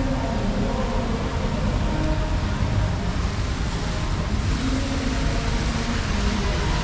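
Steady road traffic noise: cars and buses running and passing, with a continuous low rumble.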